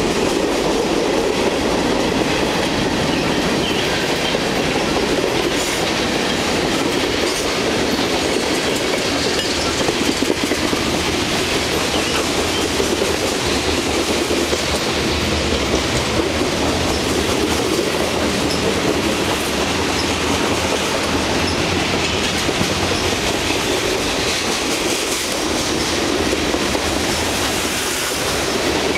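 Long freight train of rail cars rolling steadily past below, the continuous noise of steel wheels running on the rails.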